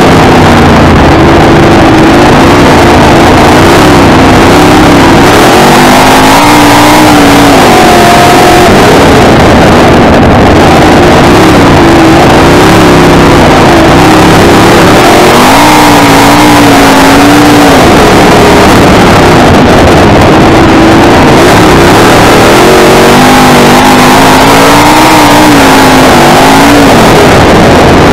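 Sprint car's V8 engine at racing speed, very loud from a camera mounted on the car, its pitch rising on the throttle and falling off every few seconds as the car laps the dirt oval.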